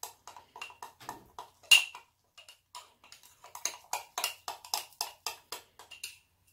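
Metal butter knife stirring sourdough starter in a small glass jar, the blade clinking against the glass in a run of quick taps, one louder clink about two seconds in, the taps coming faster, about four a second, in the second half. The starter is being mixed with its feed of fresh flour and water.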